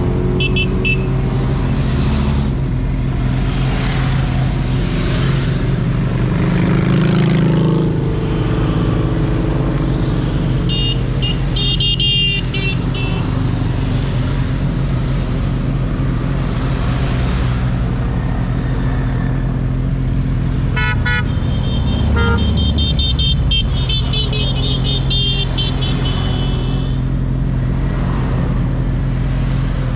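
Motorcycle engine running steadily on the move, with horns beeping in short runs of quick toots, briefly at the start, again about a third of the way in and most of all in the later part.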